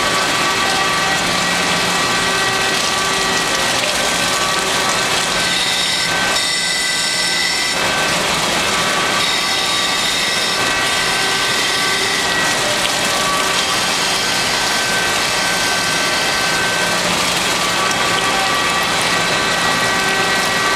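Mattison large surface grinder running, its abrasive wheel grinding steel parts held on a magnetic angle fixture: a steady hiss with several high whining tones over a low hum. The sound shifts briefly about a third of the way in, losing the hum and turning brighter.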